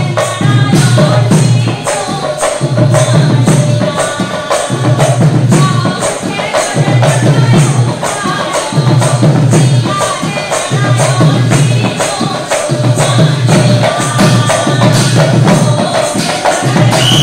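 Assamese diha naam devotional chant: a group singing in unison, with small hand cymbals struck in a steady, quick rhythm and a regular low beat underneath.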